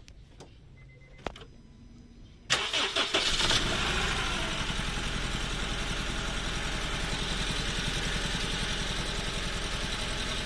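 A few faint clicks, then a 2007 Honda Civic FD's engine cranks and starts about two and a half seconds in and settles into running with an uneven pulsing beat. It is badly misfiring ('palyado').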